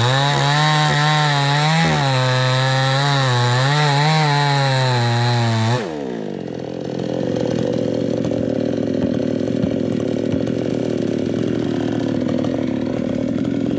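New West 628 two-stroke chainsaw at full throttle cutting into a sengon tree trunk, its pitch dipping and wavering under the load of the wood. About six seconds in the throttle is released and the engine note drops, and a lower, steadier running sound follows.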